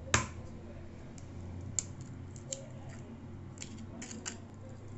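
An egg cracked sharply once against the rim of a plastic mixing bowl just after the start, followed by a few lighter clicks and taps as the shell is pulled apart and emptied into the flour.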